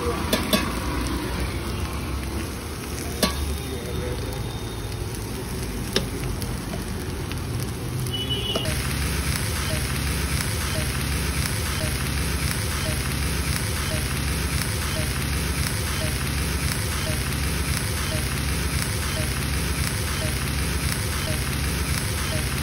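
Chowmein noodles and chopped vegetables frying in a large iron wok: a steady sizzle, with a few sharp knocks in the first six seconds. About eight and a half seconds in the sizzle suddenly grows louder and hissier, then holds steady.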